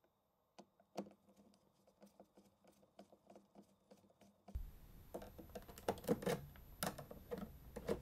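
Quiet clicks of a screwdriver turning small screws out of the plastic case of an iPod docking station, with one sharper click about a second in. From about halfway the clicks and knocks of the plastic case become more frequent as it is handled and pried apart.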